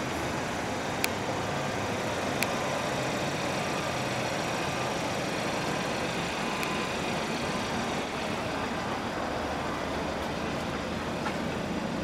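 Steady motor-vehicle noise with a couple of faint clicks about one and two and a half seconds in.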